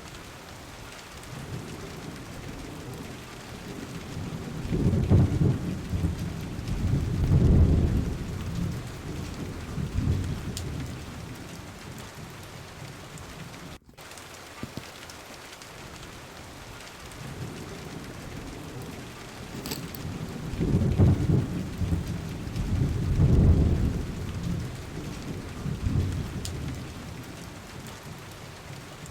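Steady rain hissing, with two long low rolls of thunder about sixteen seconds apart. It is an added rain-and-thunder ambience track that drops out for an instant near the middle, as if looping.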